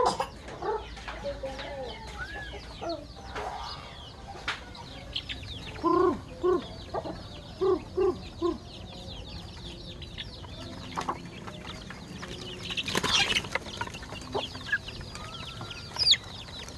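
Chickens clucking and calling at close range, with a run of about seven short, loud clucks around six to eight seconds in and a brief noisy burst near thirteen seconds.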